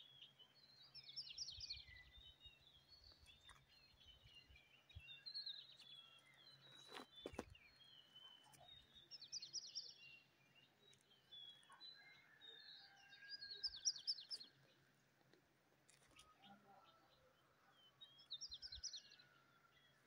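Wild birds chirping and singing: one bird repeats a short, fast, high phrase about every four to five seconds, with other birds' short chirps in between. A couple of brief knocks come about halfway through.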